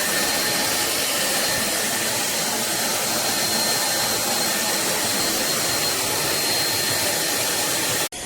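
Vacuum cleaner motor running steadily, a loud rushing hiss with a faint high whine. It cuts off abruptly about eight seconds in.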